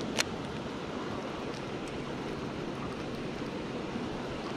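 Steady outdoor rush of wind and water, with one sharp click a moment after the start.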